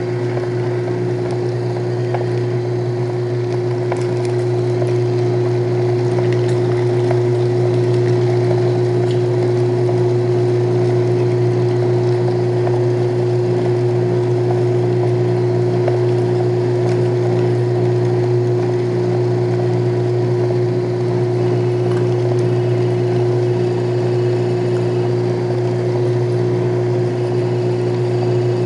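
Homebuilt motorized meat grinder running steadily while grinding pork, its motor giving a loud, even hum with a steady tone above it.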